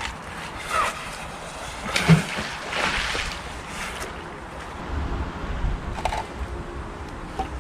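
Water splashing from magnet fishing: a knock about two seconds in, then a second or so of splashing, with wind rumbling on the microphone.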